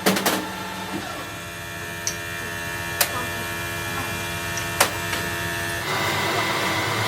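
Two quick metal knocks, then a workshop machine running steadily with a steady whine. Two sharp metallic clicks cut in partway through, and the machine's sound changes to a lower tone near the end.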